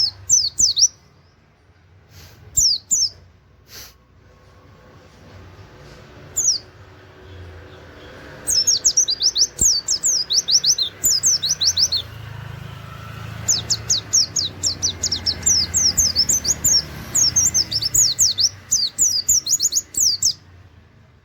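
White-eye (pleci) singing rapid strings of high, falling 'wit wit' notes, the quick-fire 'nembak' style. There are a few short bursts at first, then long fast runs from about eight seconds in.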